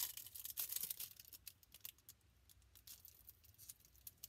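Plastic packaging crinkling and rustling as it is handled: a dense patch of crackle in about the first second, then scattered light rustles and clicks.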